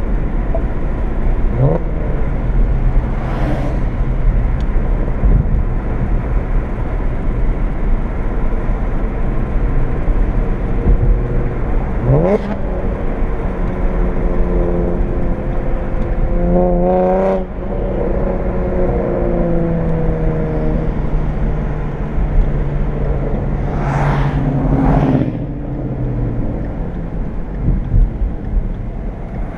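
Car engine heard from inside the cabin while driving, with tyre and road noise throughout. The engine pulls up in pitch a few times, about two seconds in, around twelve seconds and again near the end, and cruises steadily in between, with a few brief whooshes.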